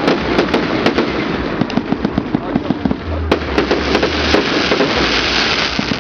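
New Year's fireworks and firecrackers popping and crackling densely, many sharp reports a second. A deeper low rumble comes in about three seconds in for about a second, followed by a brighter crackling hiss.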